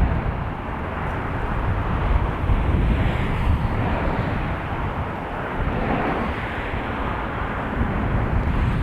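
Steady noise of passing road traffic mixed with gusty wind rumbling on the microphone.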